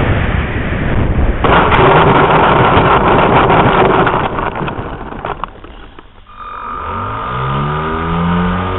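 Model plane's motors heard from an onboard camera. First a loud rushing, rattling noise as it rolls over the dirt strip, which fades out. Then about six seconds in the motors spool up in a rising glide and settle into a steady run with a high whine.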